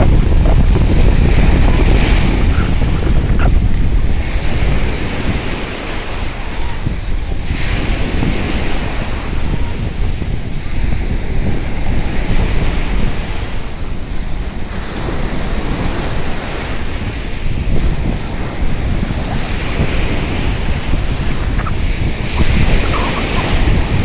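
Sea surf breaking onto a sandy beach, the wash swelling and easing every several seconds, with wind buffeting the microphone in a steady low rumble.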